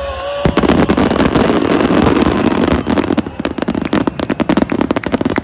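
Fireworks crackling: a dense rattle of many small pops sets in suddenly about half a second in, then thins to scattered pops toward the end.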